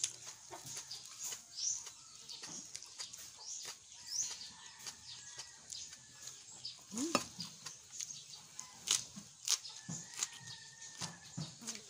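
Close-up eating sounds: wet chewing, lip-smacks and mouth clicks as fresh leafy vegetables are wrapped and eaten. Short, high bird chirps sound intermittently in the background.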